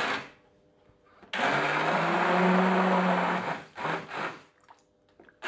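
Taurus Robot 300 hand blender running in short spells in a bowl of tomatoes, soaked bread and garlic: a brief burst, a run of about two seconds, then two short bursts.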